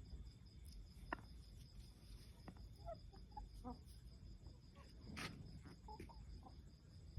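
Faint, scattered clucks and peeps from chickens, over a steady high pulsing trill of crickets.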